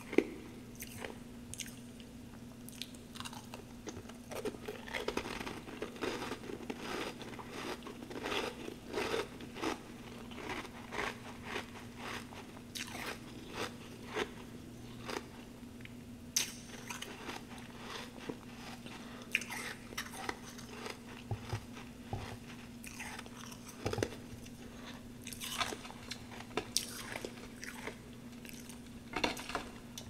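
Close-up crunching and chewing of humidifier frost chunks: a dense run of sharp, crisp crunches as the frost is bitten and chewed.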